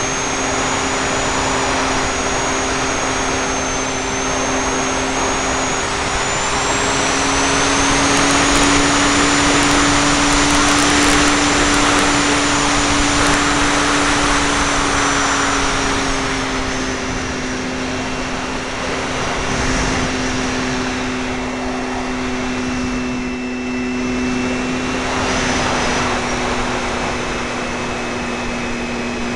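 ParkZone F4F Wildcat RC plane's electric motor and propeller running in flight, heard from a camera taped to the airframe: a steady drone with a thin high whine over heavy rushing air. The whine steps up in pitch and the rush swells about a quarter of the way in, then eases again.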